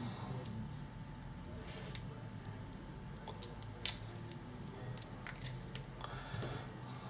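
Scattered small clicks and scrapes from handling small plastic and metal parts while taking a speaker apart. The sharpest click comes about two seconds in, and a faint steady low hum runs underneath.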